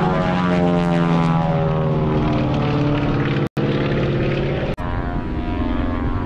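Propeller airplane's engine droning overhead during an aerobatic smoke run, its pitch sliding gradually lower over the first three seconds, then holding steadier. The sound cuts out for a split second twice, at about three and a half and about five seconds in.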